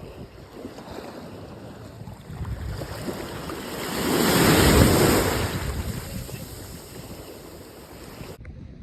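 Sea waves washing onto the shore with wind buffeting the microphone; one wave swells and fades about four to five seconds in. The sound cuts off suddenly near the end.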